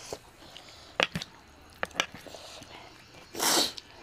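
Eating noises: spoons and forks clicking against steel bowls about five times in the first two seconds, then a short breathy hiss near the end.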